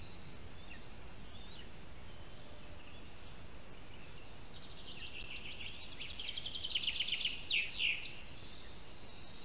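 A bird singing high in the forest about halfway through: a fast run of repeated high notes that ends in two louder downward-sweeping notes. A steady background hiss of woodland noise runs underneath.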